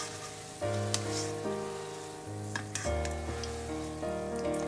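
Background music of held notes over a bass line, with eggplant and green pepper pieces sizzling as they deep-fry in hot oil and a few sharp crackles of spattering oil.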